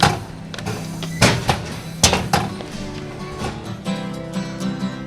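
Music playing: a few sharp percussive hits in the first half, then sustained chords from about three seconds in.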